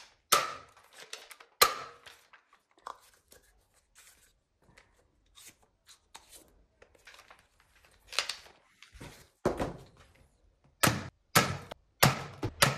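Sharp plastic clicks and knocks of a toy foam-dart blaster being handled and loaded with foam darts, sparse in the middle and with a run of louder clicks in the last few seconds.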